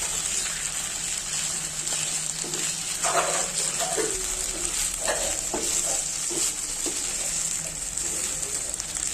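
Ginger mixture sizzling in a pan as it is stirred with a spatula: a steady high hiss with irregular scrapes and knocks against the pan.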